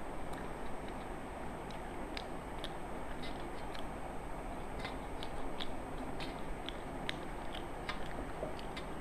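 Two people eating rice and curry by hand from brass plates: scattered small wet clicks of chewing and lip-smacking and of fingers working the food, over a steady background hiss.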